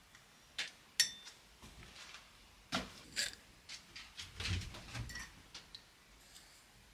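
Sharp clinks and knocks of a ceramic mug and containers being handled on a table, then something poured from a container into the mug for about a second, a little past the middle.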